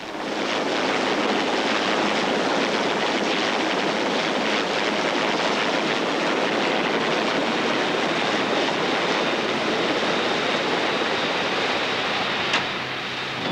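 Sea King rescue helicopter hovering low overhead: a steady, loud rush of rotor wash and turbine noise that eases off shortly before the end, with a brief click.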